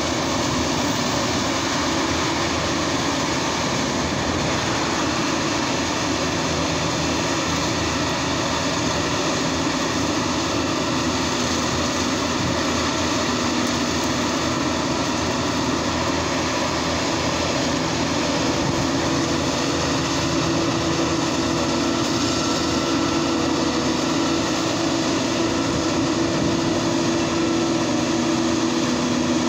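CLAAS self-propelled forage harvester at work chopping standing maize, its engine and cutter running in a steady drone, with a tractor pulling a forage trailer alongside. A steady low tone in the drone grows stronger about two thirds of the way through.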